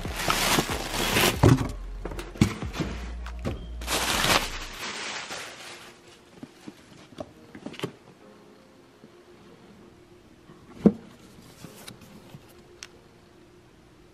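Plastic air-cushion packing pillows crinkling and rustling as they are handled in a cardboard shipping box. After that comes quieter handling of a cardboard shoe box, with a few light knocks and one louder thump about eleven seconds in.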